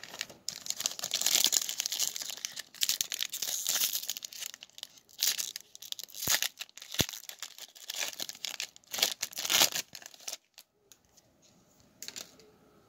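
Trading card pack wrapper from a Panini Select football blaster box being torn open and crinkled, in irregular loud crackly bursts for about ten seconds. It fades to a few faint rustles near the end.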